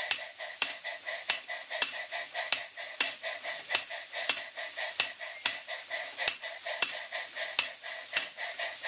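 Jensen 20G model steam engine running on live steam and driving a belt-driven home-made model steam hammer, which strikes in an even rhythm with sharp metallic clicks a little under two a second, over a steady hiss of steam.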